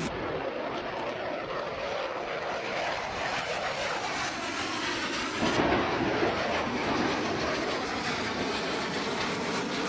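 Fighter jet flying past: a steady jet-engine rush that swells louder about five and a half seconds in.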